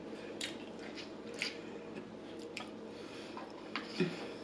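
A person chewing food close to the microphone: soft wet mouth sounds with a few faint clicks spread through.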